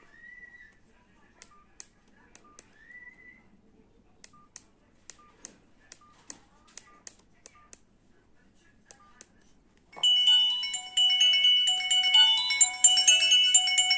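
Old Nokia mobile phone: faint keypad clicks, each with a short beep, and a couple of brief rising chirps. About ten seconds in, a loud ringtone melody starts playing from the phone's speaker.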